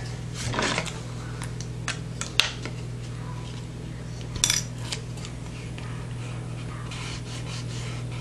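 Hard 3D-printed ABS plastic mount pieces handled and pressed together by hand: a short scrape near the start, a sharp click about two and a half seconds in, a quick cluster of clicks about two seconds later, and a few lighter taps.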